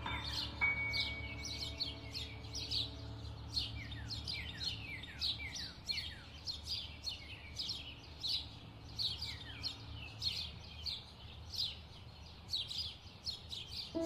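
Birds chirping: a continuous stream of short, quick chirps, several a second, each falling in pitch, over a faint low drone.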